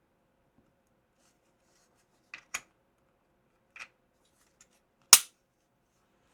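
A few light mechanical clicks from a Glock 19 Gen 6 pistol being worked by hand during an attempt to take the slide off, ending in one sharp, loud snap about five seconds in.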